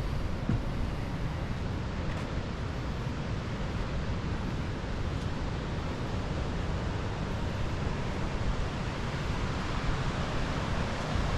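Wind buffeting the microphone over a steady rushing noise, growing a little louder near the end.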